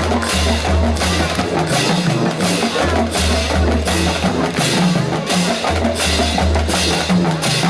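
Live band playing an up-tempo rhythm-and-blues number, with the drum kit keeping a steady beat over a pulsing bass line.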